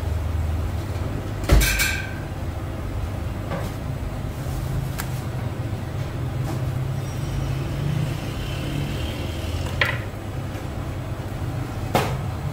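A knife knocking a few times on a plastic cutting board while meat is cut. The first knock, about one and a half seconds in, is the loudest and rings briefly. A steady low hum runs underneath.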